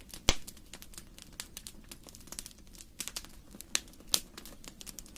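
Wood fire crackling in a fireplace: irregular sharp pops and snaps, one loud pop about a third of a second in and two more near the end, over a low steady rumble of the flames.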